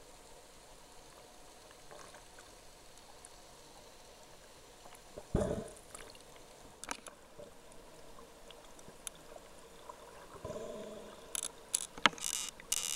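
Underwater sound picked up through a camera's waterproof housing: a faint steady hiss with scattered clicks, a low whoosh about five seconds in and a weaker one later. Near the end comes a loud stretch of crackling and rushing.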